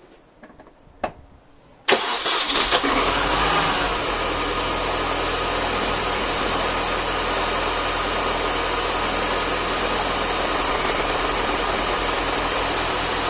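Mini Cooper S R53's supercharged 1.6-litre four-cylinder engine starting after a couple of faint clicks: it fires suddenly about two seconds in, the revs flare briefly, then it settles into a steady idle. The idle runs a little rough while the ECU adapts its fuel trim to newly fitted 363cc injectors.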